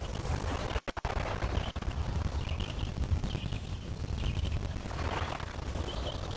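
Lake waves lapping against shoreline stones over a deep rumble, with small birds chirping repeatedly in high short calls. The sound cuts out briefly twice about a second in.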